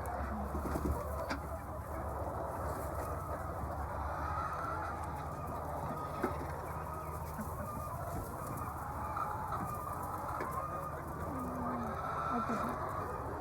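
A flock of laying hens clucking together in a continuous chorus, over a steady low hum. A single sharp click sounds about six seconds in.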